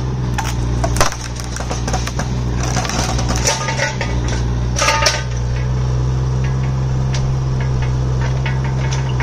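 Kubota mini excavator's diesel engine running steadily while the boom and bucket with hydraulic thumb swing and lift, with sharp metallic clanks and clinks from the arm's linkage, the loudest about a second in and about five seconds in.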